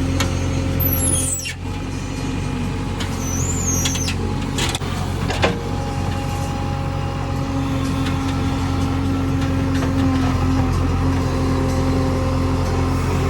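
JCB 3DX backhoe loader's diesel engine running steadily, with a few sharp knocks and two brief high squeals in the first few seconds.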